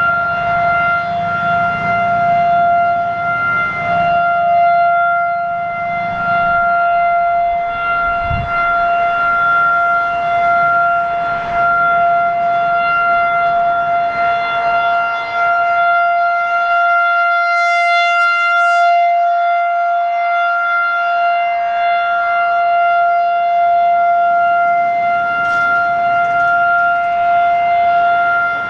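Federal Signal 2001 electromechanical outdoor warning siren sounding a steady tone for a siren test, one held pitch with strong overtones. A brief low thump comes about eight seconds in.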